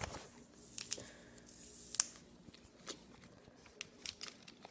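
A baseball card pack's wrapper being handled and torn open: scattered small crinkles and tearing clicks, with one sharper snap about two seconds in.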